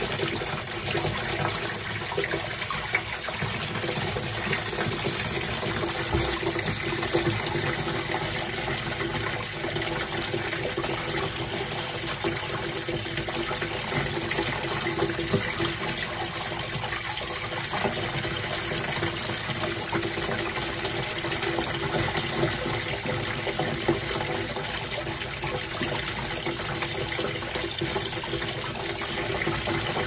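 Running water gushing steadily, a continuous rush with no break.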